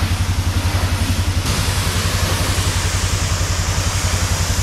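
Electric pressure washer spraying: a steady hiss of the spray over a fast, even low pulsing. About a second and a half in the hiss turns brighter as a plain water jet hits the UTV's plastic windshield.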